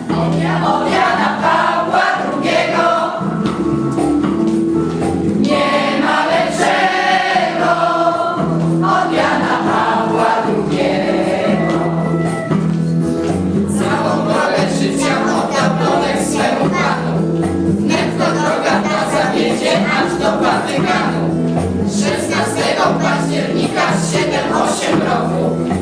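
A small group of young singers, mostly female voices, singing a song together from songbooks.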